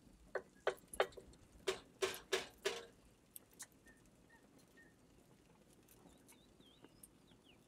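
A wooden spoon knocking against the side of a black metal pot while stirring the filling: about seven sharp knocks, roughly three a second, then a couple of weaker taps and faint ticking.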